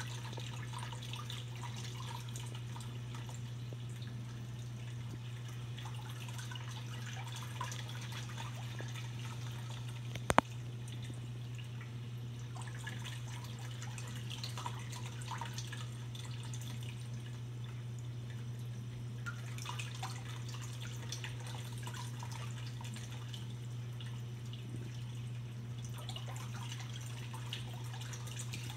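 Reef aquarium water trickling and dripping, with a steady low hum from the tank's circulation equipment underneath. A single sharp click sounds about ten seconds in.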